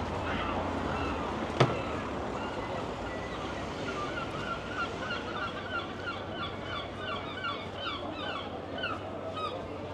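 Seagull calling in a fast run of short, repeated yelping notes through the second half, over steady street and seafront background noise. A single sharp click about a second and a half in.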